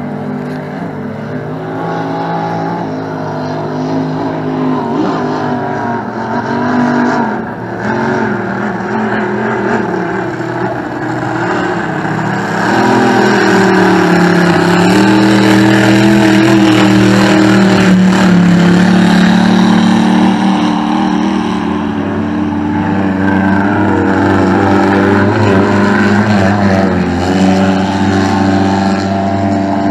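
Inboard racing powerboat engines running at high revs across the water, their pitch rising and falling as the boats accelerate and turn. The sound grows louder about twelve seconds in as a boat comes closer, and stays loud.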